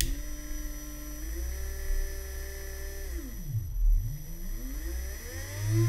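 Commutator lathe's small electric drive motor spinning an RC motor armature with a steady whine. About three seconds in it winds down to a stop, then spins back up and settles into a steady run near the end.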